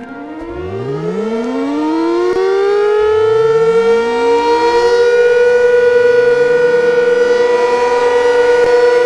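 Outdoor warning siren winding up: its pitch rises from very low to a loud, steady high wail. Fresh rising tones start again about three seconds in and near the end, merging into the same held note.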